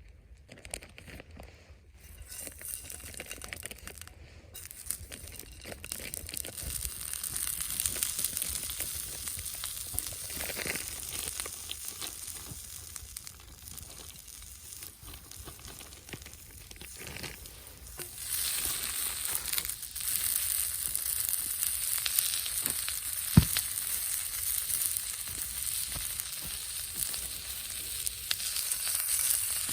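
Food frying in a pan, a steady crackling sizzle that grows louder about two-thirds of the way in, with one sharp click soon after.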